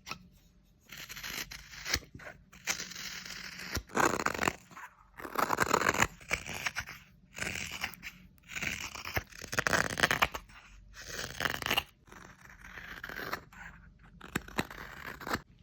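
Carving knife shaving wood from a carved spoon: about a dozen scraping strokes, each about a second long, with short pauses between.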